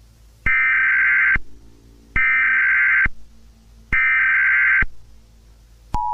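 Emergency Alert System SAME header: three bursts of high, buzzy digital data tones, each just under a second long with short gaps between them. Right at the end the steady two-tone EAS attention signal begins.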